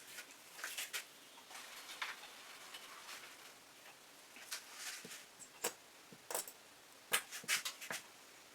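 Plastic squeeze bottle of acrylic paint with a plugged tip being squeezed and worked to clear the clog: faint clicks of the bottle and short sputtering spurts of air and paint, several close together near the end.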